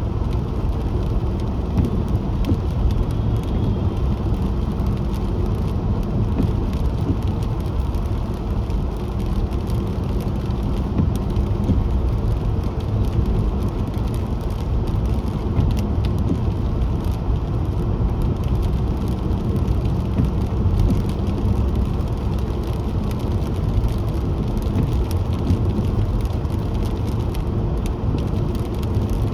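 Car driving on a wet road: a steady low rumble of road and engine noise, with a fine crackle on top.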